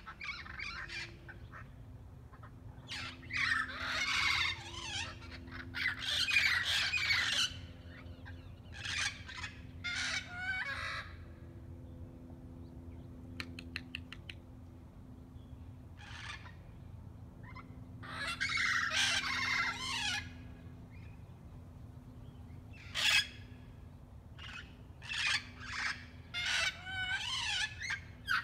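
A flock of wild green parrots squawking in loud, harsh bursts of overlapping calls, with quieter gaps between the bursts. A faint steady hum sits underneath.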